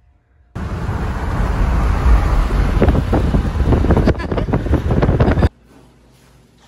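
Wind buffeting the microphone inside a moving car: a loud, gusty rumble and rush that starts about half a second in and cuts off suddenly near the end.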